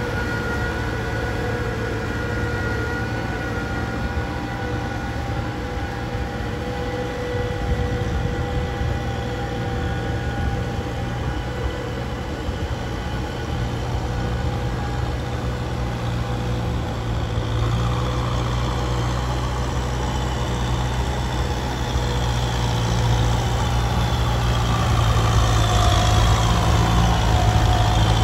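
Medium farm tractor's diesel engine running steadily while working a muddy rice field. It grows louder over the last few seconds, with a higher whine rising as the tractor comes close.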